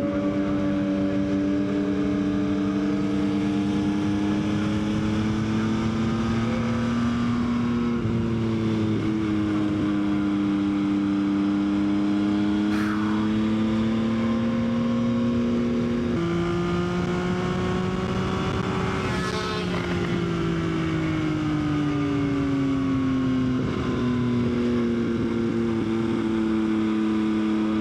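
Yamaha XSR900's inline three-cylinder engine pulling the motorcycle along, its pitch rising slowly as it speeds up. About halfway through the pitch drops sharply at a gear change. A few seconds later it falls off and picks up again, all over a steady rush of wind.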